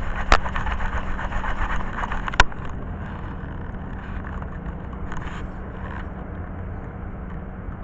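Steady rumble of road traffic with a low hum, and two sharp clicks in the first few seconds.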